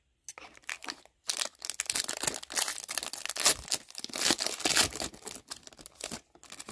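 A hockey card pack's wrapper being torn open and crinkled by hand, a dense run of crackling that swells loudest in the middle.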